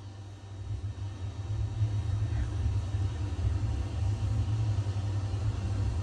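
A low, steady rumbling hum that swells up about half a second in and then holds.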